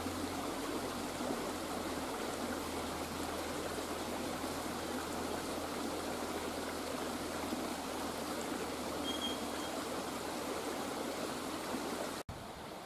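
A shallow rocky stream flowing over and between boulders: a steady rush of water that cuts off suddenly near the end.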